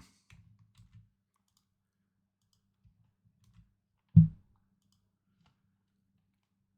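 A single short, low thump about four seconds in. Otherwise near silence, with a few faint low clicks in the first second.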